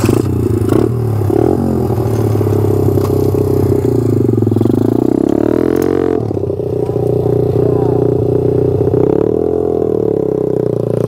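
Gas dirt bike engine running close by, cutting in suddenly and revving up and down, with a quick rev about six seconds in.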